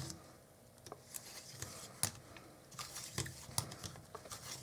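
Light, scattered clicks and scrapes of small metal parts of a Canon FD 55mm f/1.2 lens being handled and worked loose during disassembly.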